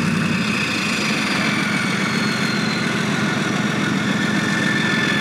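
Leguan bridge-laying tank's MTU V12 diesel engine idling steadily, with a faint high whine that drifts slowly down in pitch.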